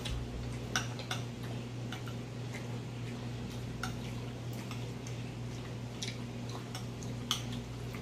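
Eating sounds at a plated meal: irregular small clicks and taps of spoons and forks against plates, with mouth sounds, over a steady low hum.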